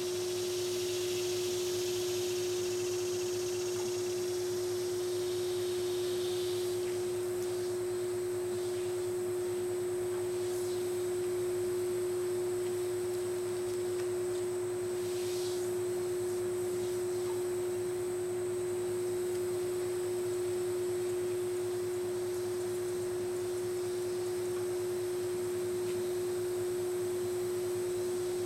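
A steady, unbroken, single-pitched tone. During the first few seconds there is a soft hiss from a garden hose's misting nozzle spraying, with another brief hiss about halfway through.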